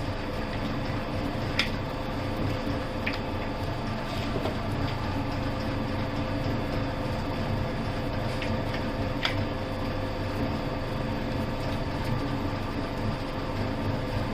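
Hose crimping machine's hydraulic power unit running with a steady hum, with a few light metallic clicks, about 1.5, 3 and 9 seconds in.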